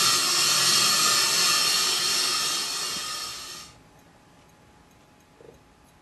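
Steady hissing noise, played as a stage sound effect, that dies down and cuts off about three and a half seconds in, leaving only a faint room hush.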